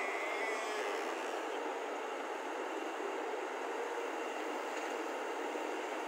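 Hyundai 215 crawler excavator's diesel engine running steadily under load as it digs and lifts a full bucket of earth.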